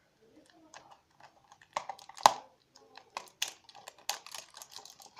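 Outer wrapper of an L.O.L. Surprise ball being peeled off by hand: irregular crackles and ticks, with a sharp snap about two seconds in.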